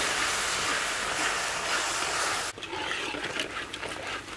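Hot oil and spices sizzling loudly in a steel wok, cutting off suddenly about halfway through; after that a quieter sizzle with a metal ladle scraping and stirring against the wok.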